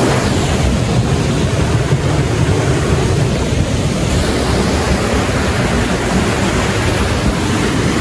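Steady, loud rush of flowing water from the hot-spring stream pouring over rocks.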